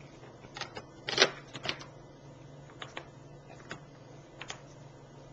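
Scattered light clicks and taps, about a dozen at uneven intervals, over a faint low steady hum.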